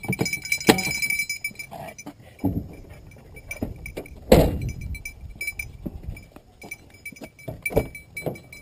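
Metal jingling and clinking from a dog's collar as the dog moves, with a short ringing note recurring irregularly, plus a louder thump about four seconds in.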